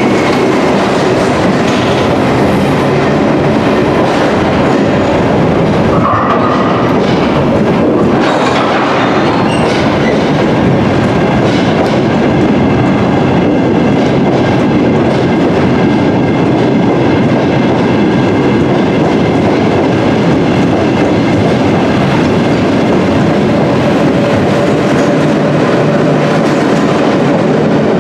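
London Underground battery locomotives and their train of flat engineering wagons running through a deep-level tube station platform. The wheels rumble and clatter steadily over the rails, with the sound held in by the tunnel.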